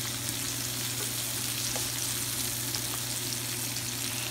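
Chopped onion, garlic, tomato and serrano pepper sautéing in olive oil in a pan: a steady sizzle with small scattered crackles, over a low steady hum.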